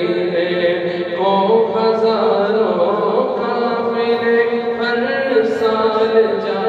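Unaccompanied male voice singing a naat into a microphone, drawing out long melismatic notes that glide slowly between pitches.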